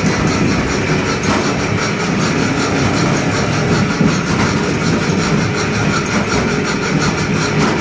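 Citrus fruit brushing and sorting machine running: a steady mechanical rumble with a rapid, even clatter.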